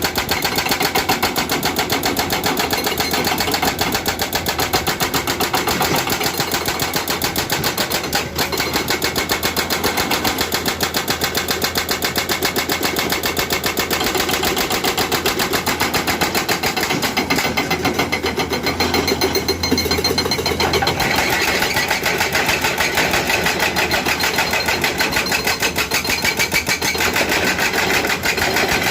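Excavator-mounted hydraulic breaker hammering rock, with rapid, even blows under the excavator's engine.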